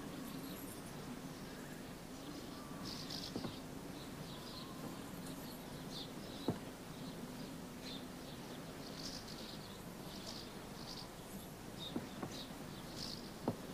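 Quiet outdoor ambience: small birds chirping now and then over a steady low hum, with a few sharp clicks, the loudest about halfway through.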